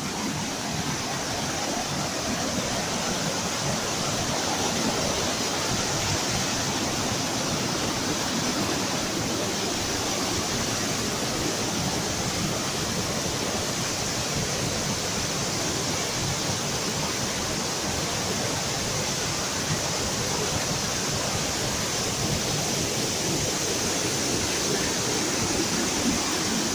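Waterfall: water pouring over the falls into a pool, a loud, steady rush with no change.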